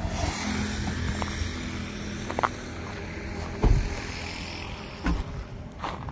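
Road traffic passing on the highway, a steady rumble, with a few short thumps and knocks from the open car. The loudest thump comes about three and a half seconds in.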